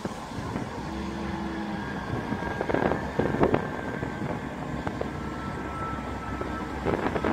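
Class 158 diesel multiple unit standing at the platform with its diesel engine running at a steady idle, a low rumble. A few short knocks come about halfway and again near the end, and faint high tones are held for a second or so.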